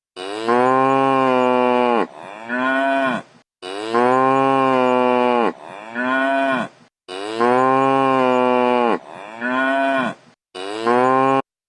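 A cow mooing: a long moo followed by a shorter one, three times in a row, with one more short moo near the end.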